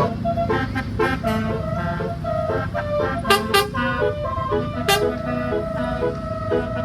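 Bus telolet horn, a multi-tone air horn, playing a quick tune of changing notes over the bus's engine rumble; about five seconds in it settles into one long held note with short repeated notes under it.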